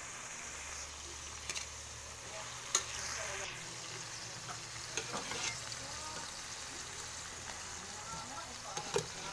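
Garlic, onion and tomato sautéing in oil in a wok, a steady sizzle, while a metal spoon stirs and clinks against the pan a few times.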